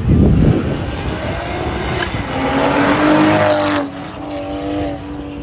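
Toyota Supra sports car driven hard through an autocross course: a loud burst at the start, then the engine note and tyre noise build as it passes close. The sound drops off sharply about four seconds in, leaving a fainter, steady engine tone as the car pulls away.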